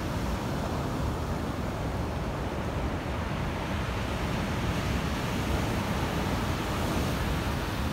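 Storm surf breaking heavily onto a pebble beach: a steady wash of crashing waves with a deep rumble, and wind buffeting the microphone.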